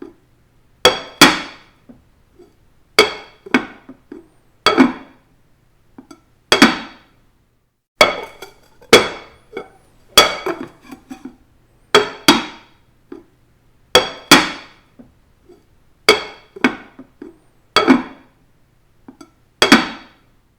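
A hard kitchen implement strikes a hard surface again and again, mostly in quick pairs about every two seconds. Each hit is sharp and rings briefly.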